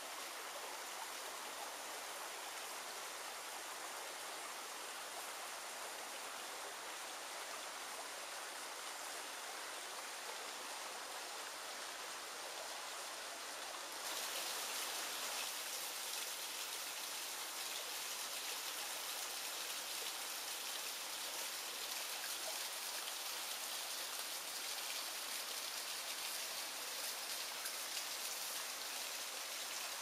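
Mountain river water rushing and splashing over rocks in a steady hiss. About halfway through it turns louder and brighter, as a small waterfall into a pool comes close.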